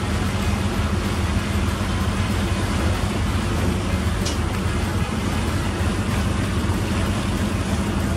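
Passenger boat's engine running steadily, a constant low drone under an even rush of wind and water.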